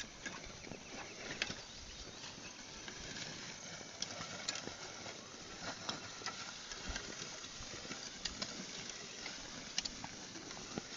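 Oxen pulling a plough through a field: scattered light knocks and clicks over a steady outdoor background.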